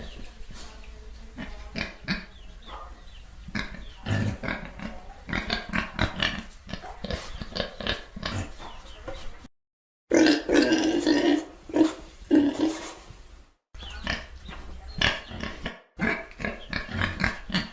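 Pigs grunting and oinking in quick, short grunts. Separate recordings are spliced together with abrupt cuts and brief dead-silent gaps, and a louder stretch of grunting starts just after ten seconds.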